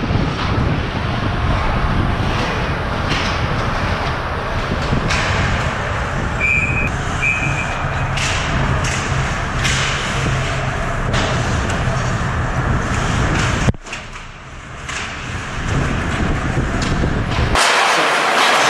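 Ice rink sound during a hockey game: a steady rumbling noise with scattered knocks and scrapes of skates, sticks and puck. There are two short high tones a little after six seconds in, and one sharp knock about two-thirds of the way through.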